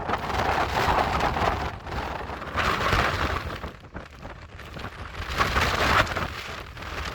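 Gale-force wind gusting and buffeting the microphone: a noisy rush with a low rumble that swells three times, with a lull about four seconds in.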